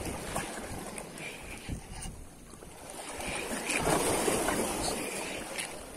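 Wind on the microphone over choppy water lapping below, the noise swelling louder about four seconds in.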